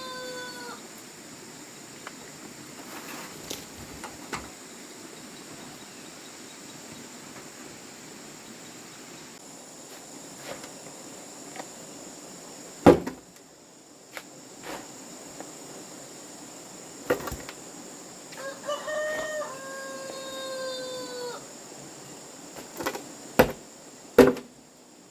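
Rooster crowing: the end of one crow at the very start, and one long crow about three-quarters of the way through that holds and then falls in pitch. Several sharp knocks sound in between, the loudest about halfway, over a steady high whine.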